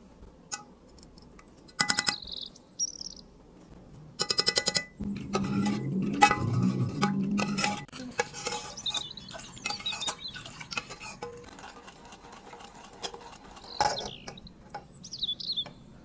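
Metal spoon clinking and scraping against a stainless steel saucepan while almond milk is mixed and stirred, with two quick runs of rapid rattling clicks. A few short bird chirps are heard about three seconds in and again near the end.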